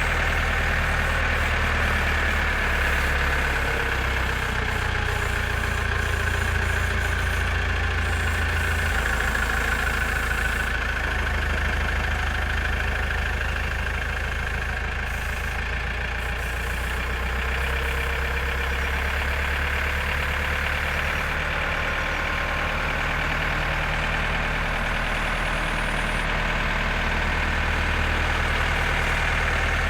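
Diesel engine of a JCB 4CX backhoe loader running steadily, a continuous low drone whose pitch shifts slightly a few times.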